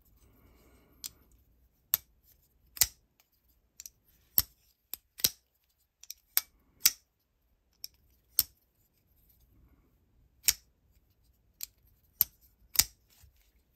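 Folding knife worked open and shut in the hand, giving a run of sharp metallic clicks at uneven spacing as the blade snaps into its locked and closed positions.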